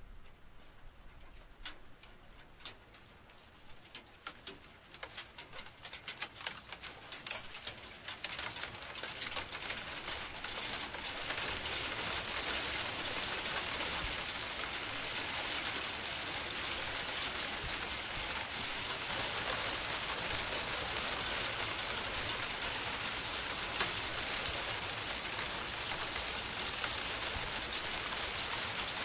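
Rain starting: scattered single drops at first, thickening over about ten seconds into steady, heavy rain falling on a surface.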